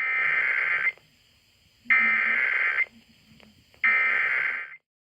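Emergency Alert System SAME header data tones: three bursts of buzzy digital data, each about a second long, with about a second's pause between them, cutting off sharply. The header is sent three times to trigger stations relaying the Required Monthly Test.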